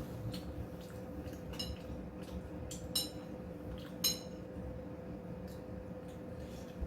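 Utensils clinking against dishes a few times, short ringing taps with the two clearest about three and four seconds in, over a faint steady hum.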